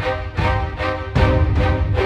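Background music with a steady beat, about two and a half beats a second, over held chords and a heavy bass.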